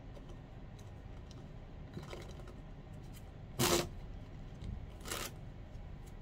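Large silk hand fan with wooden ribs flicked shut with a snap of the wrist, the ribs and silk sweeping together in a sharp rustling clatter. Two quick bursts about a second and a half apart, the first louder.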